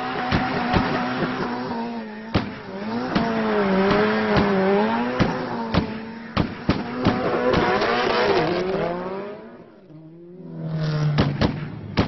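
Turbocharged Subaru Impreza rally car doing smoky donuts, its engine held high and wavering with the throttle, tyres squealing, and sharp exhaust pops scattered throughout. About ten seconds in, the engine and tyres briefly drop off, then the engine picks up again.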